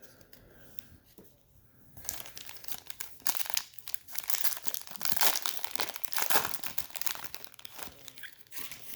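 Wrapper of a trading-card pack being torn open and crumpled by hand: a dense run of crinkling and tearing that starts about two seconds in and is loudest past the middle.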